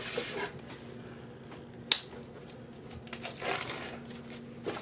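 A cardboard food box being handled and set upright on a kitchen counter: soft rustling, with one sharp tap about two seconds in.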